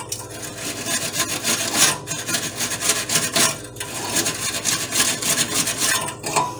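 Coiled metal scouring pad scrubbed back and forth against the steel inner wall of an Emeril Lagasse Air Fryer 360, a continuous rasping scrub of repeated strokes that lifts baked-on grease splatter. The pad is only slightly damp.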